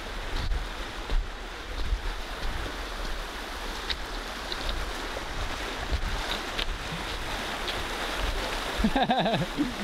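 Steady rushing of a shallow river riffle over stones, with wind rumbling on the microphone. A short wavering pitched sound comes near the end.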